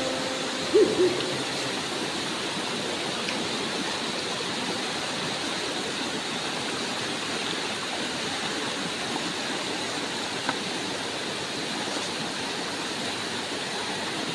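Steady rush of a shallow river running over rocks and small rapids. A short pitched tone sounds about a second in, and a single faint tick comes near the end.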